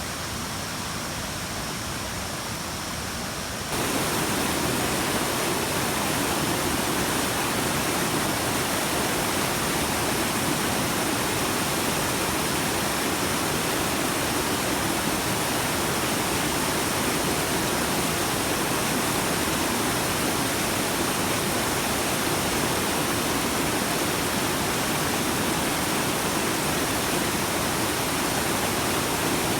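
Steady rushing noise, with no distinct events, that gets louder and fuller about four seconds in.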